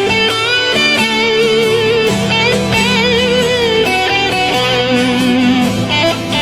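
Background music: an electric guitar playing a melody with bends and vibrato over a steady accompaniment.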